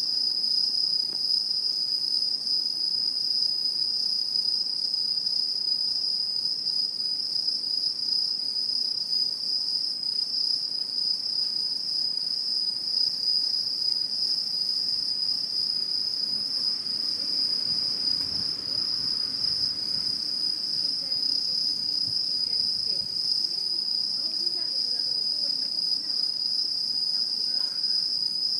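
Autumn insects singing in a steady, unbroken, high-pitched chorus.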